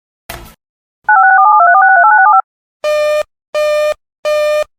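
Emergency Alert System tones. After a short click comes a warbling data burst of rapidly stepping paired tones, lasting just over a second. It is followed by a run of evenly spaced buzzy electronic beeps, about three every two seconds.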